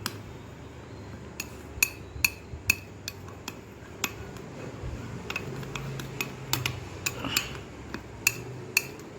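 A spoon clinking against a bowl again and again while a sprout salad is stirred and mixed. The clinks are sharp and irregular, each with a short ring.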